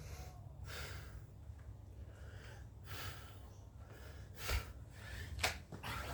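A person breathing hard, about one noisy breath a second, with a few sharp knocks or thumps in the second half.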